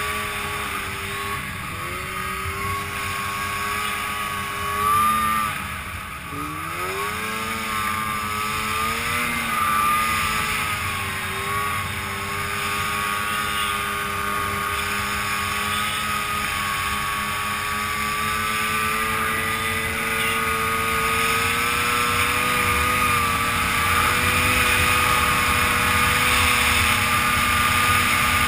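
Arctic Cat Crossfire 700 snowmobile's two-stroke twin engine running hard up a snowy hill. Its pitch dips sharply about five seconds in and climbs back, then holds and rises slowly toward the end.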